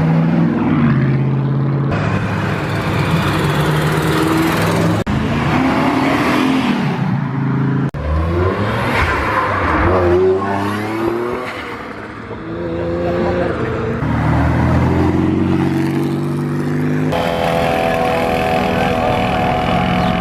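Performance cars accelerating hard one after another, engines revving up and dropping between gears, in several short clips that cut abruptly into each other.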